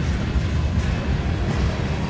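Train rolling past, a steady low rumble.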